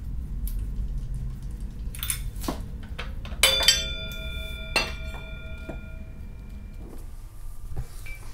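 Metal engine-to-transmission adapter plate clanking as it is handled and pulled off the engine block: a few light clicks, then a sharp clank about three and a half seconds in that leaves the plate ringing with a bell-like tone for about two seconds, and another knock near five seconds, over a low steady hum.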